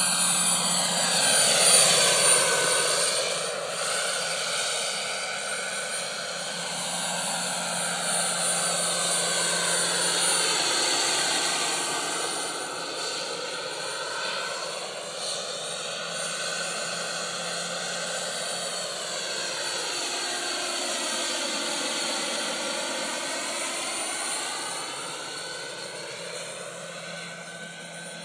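Jakadofsky model turbine engine of a scale Westland Scout RC helicopter in flight: a steady high turbine whine with the rotor sound, swelling and fading and shifting in tone as the helicopter flies passes back and forth. It is loudest about two seconds in.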